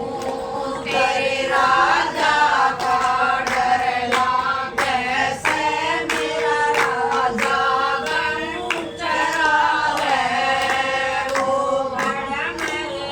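Group of women singing a Haryanvi folk song together, with regular hand claps keeping the beat and a steady held tone underneath.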